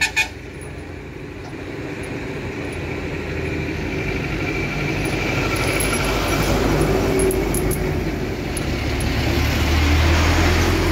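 Road traffic: a motor vehicle's engine and tyre noise growing gradually louder over several seconds, loudest near the end. Two sharp clicks right at the start.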